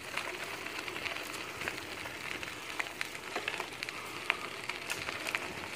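Bicycle tyres rolling over a dirt-and-gravel trail: a steady crackling crunch with scattered sharp clicks from small stones.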